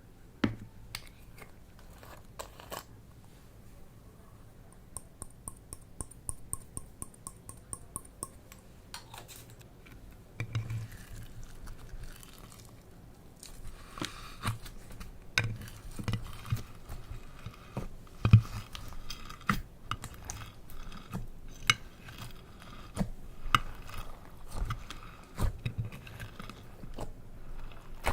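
Slime being kneaded and squished by hand, giving irregular sticky crackles, clicks and pops with soft squelches, busier in the second half. A short run of rapid, even ticks comes about five seconds in.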